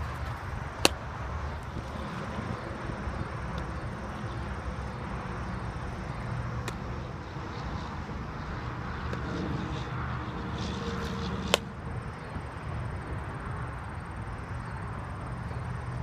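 A softball popping into a leather fielding glove: two sharp catches about ten seconds apart, with a fainter one between them, over a steady low outdoor rumble.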